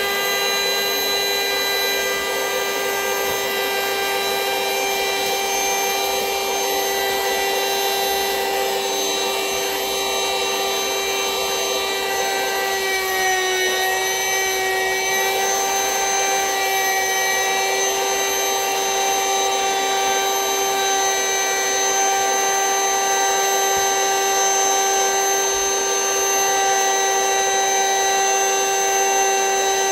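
Vacuum cleaner motor running steadily with a high whine, drawing the air out of a vacuum storage bag packed with plushies. The pitch sags slightly about halfway through, then holds steady again.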